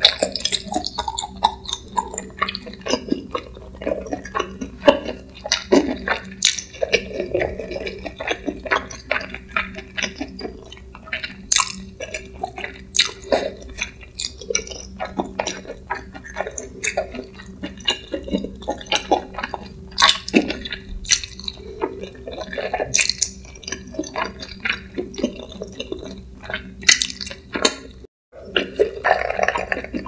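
Close-miked chewing of spicy stir-fried webfoot octopus (jjukkumi): an irregular stream of wet, squishy smacks and clicks from the mouth.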